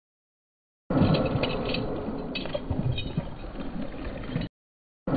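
Baitcasting reel being cranked with scattered ticks from its gears, while a hooked bass splashes and thrashes at the surface. The sound is dull, with the top end cut off. It starts abruptly about a second in and cuts off abruptly near the end.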